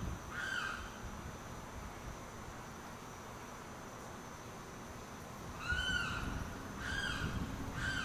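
Limpkin giving loud wailing calls: one just after the start, then three more in quick succession from about six seconds in, each short and rising then falling in pitch. A low rumble runs underneath.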